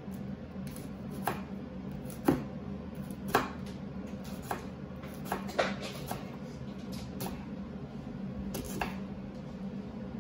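Cleaver slicing a green onion stalk on a cutting board: sharp knocks of the blade hitting the board at uneven intervals, roughly one a second, the loudest about two seconds in, over a steady low hum.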